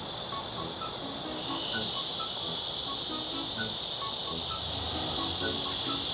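Loud, steady chorus of summer insects: an even high-pitched buzz that swells slightly about two seconds in.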